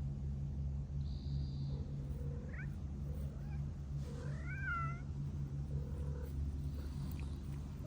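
A cat meowing: a short call about two and a half seconds in, then one longer meow that rises and falls about four seconds in, over a steady low hum.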